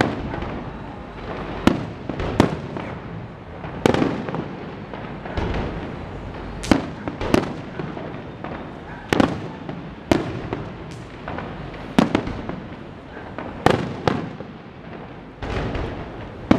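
Aerial fireworks shells bursting in a display: more than a dozen sharp bangs at uneven intervals of about a second, each trailing off in an echo, over a continuous background rumble.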